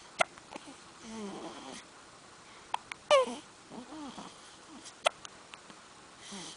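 Baby hiccupping three times, each a sharp short catch: near the start, about three seconds in and about five seconds in. Soft baby babbling sounds come in between.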